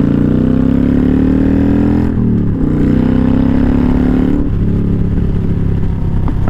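Kawasaki Vulcan 900 Custom's V-twin accelerating through the gears. The engine note rises, drops at an upshift about two seconds in, rises again, and after another drop a little past the middle settles into a steady cruise, with wind rushing over the helmet.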